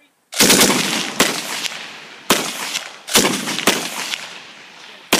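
Browning Automatic Rifle firing .30-06 rounds: a quick cluster of shots about a third of a second in, then single shots every half second to a second, each report ringing out after it.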